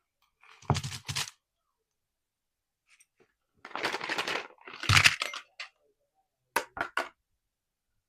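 Small chocolate wrappers crinkling and tearing as they are opened by hand: a short crackle about a second in, a longer stretch of crinkling around four to five seconds, and three quick cracks near the end.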